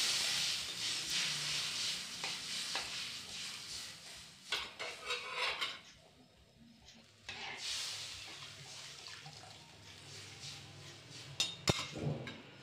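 Water just poured into a hot mustard-oil tadka in an aluminium kadhai, sizzling and hissing loudly and dying away over the first few seconds. A steel spatula then stirs and scrapes the pan, with a few sharp clinks against the metal near the end.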